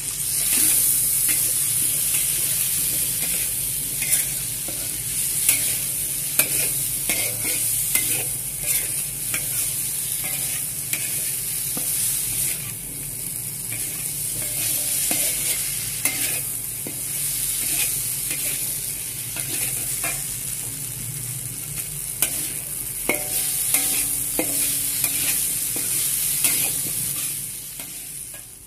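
Diced food sizzling in a wide frying pan while a metal spatula stirs and tosses it, scraping and clicking against the pan. The sizzling fades away near the end.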